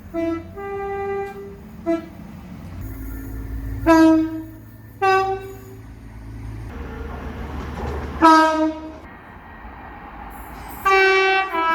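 A series of train horn blasts, some short and some held for about a second, at a few different pitches. One slides up in pitch as it starts about eight seconds in. A low rumble from the train runs under the horns for a few seconds in the middle.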